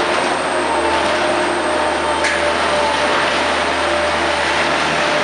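Bobcat skid-steer loader's engine running steadily as the machine drives. There is a single sharp knock about two seconds in.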